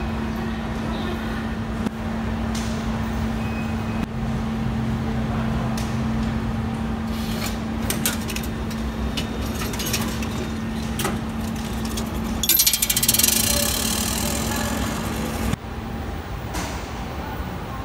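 Subway station ambience: a steady low hum with scattered clicks and knocks. About twelve and a half seconds in, a loud rattling noise lasts about three seconds, and the hum cuts off suddenly soon after.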